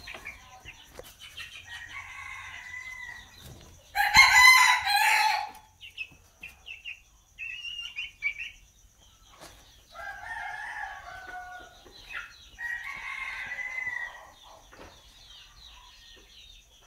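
Roosters crowing several times, the loudest crow about four seconds in and the others fainter, with some clucking between.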